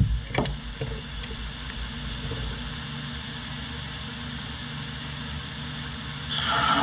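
An electric workshop machine motor running steadily, after a couple of knocks at the start. Near the end a louder, hissing noise sets in.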